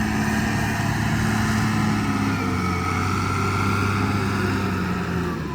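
John Deere 444 wheel loader's diesel engine running steadily under work, with a faint whine that rises a little midway.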